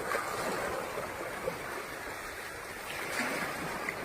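Sea waves washing in on the shore: a steady rush of surf that swells softly now and then.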